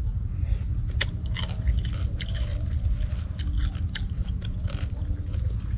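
Close-up chewing and crunching of crisp deep-fried fish, with scattered short crunches over a steady low rumble.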